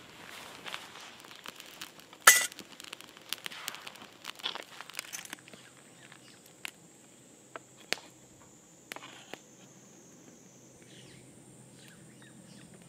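Close-up camp-cooking handling sounds: rustling and crackling with one sharp click about two seconds in, then a few scattered light taps, and near the end a knife blade scraping minced garlic off a wooden cutting board into a steel pot. A steady high thin tone runs underneath.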